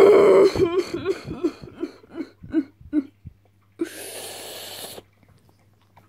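A boy coughing and sputtering: a loud voiced sound sliding down in pitch, then a run of about eight short coughs that fade away, and a long breathy exhale about four seconds in.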